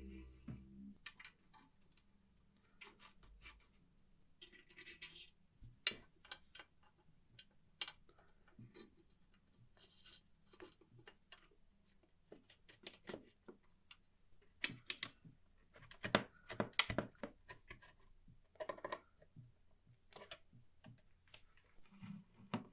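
Irregular small clicks, taps and light scrapes of metal typewriter parts and hand tools being worked on, with a denser run of clicks about fifteen to seventeen seconds in.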